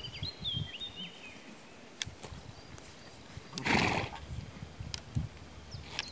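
A horse gives one short, breathy snort a little past the middle, with low rustling from horses grazing. A few short bird chirps come near the start.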